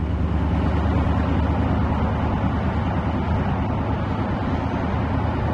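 Steady drive noise inside the cabin of a 1957 Chevy Bel Air cruising at an even speed, its LS3 6.2-litre V8 crate engine running smoothly under road and tyre noise.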